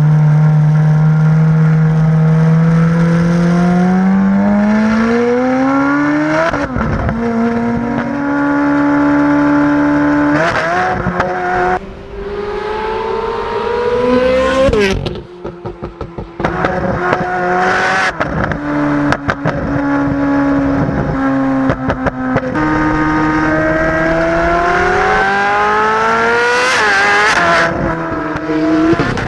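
Ferrari 458 Spider's naturally aspirated 4.5-litre V8 through an Innotech Performance valved exhaust, accelerating through the gears: the pitch climbs and drops back at each upshift. About halfway it lifts off with a choppy spell of crackles and pops on the overrun, then pulls up through the gears again.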